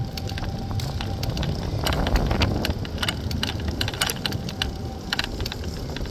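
Oslo Bysykkel city bike rolling along a street, rattling with many irregular clicks and knocks over a steady low rumble of wind on the microphone.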